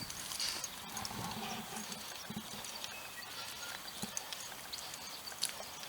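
Footsteps on rough ground: scattered, irregular light crunches and knocks while walking, over a faint outdoor hiss.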